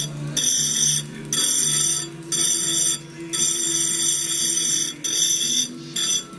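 Small diamond wheel on an engraving spindle grinding cased glass for cameo engraving: a high-pitched whine in about half a dozen strokes of half a second to a second and a half, breaking off briefly each time the glass is lifted from the wheel. Faint music underneath.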